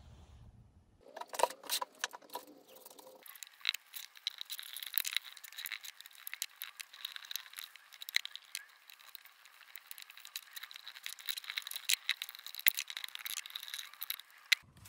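A bristle brush scrubbing wood stain onto plywood: rapid scratchy brush strokes with many small clicks, starting about three seconds in after a few knocks and clicks.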